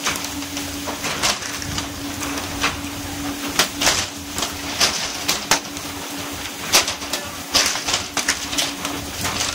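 Pole-caught fish being flung aboard a fishing boat and slapping and flopping on the deck: irregular sharp knocks, one to several a second. Under them run a steady hum from the boat and the hiss of water spraying along the hull.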